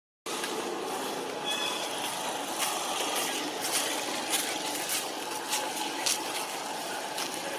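Steady outdoor background noise, an even hiss with little low rumble, with scattered short clicks.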